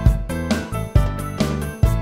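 Background music with a steady beat, about two beats a second, and pitched notes over it.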